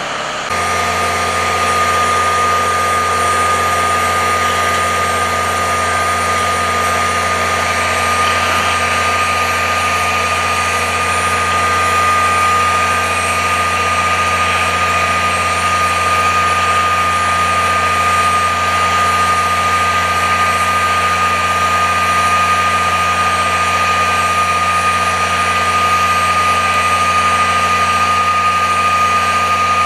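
Diesel engine of a military truck-mounted crane running steadily while the crane holds a load in slings, with a constant high whine over the engine drone.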